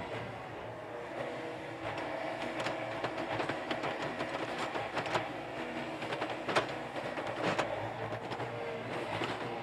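Yanmar YB451 mini excavator's diesel engine running under load while the machine swings and digs, with a few sharp clanks in the middle.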